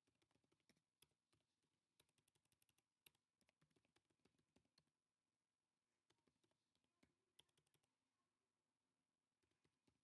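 Faint typing on a computer keyboard: runs of quick keystrokes broken by short pauses, about 5 s in and again around 8 s.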